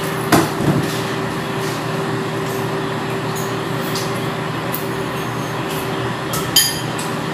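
A steady mechanical hum with one held low tone. Over it come a couple of short crinkles from the plastic ice candy wrapper as it is bitten open and handled, one just after the start and one near the end.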